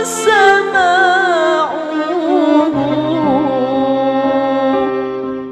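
A solo voice singing an ornamented Arabic devotional song, its line wavering and bending, over sustained held chords.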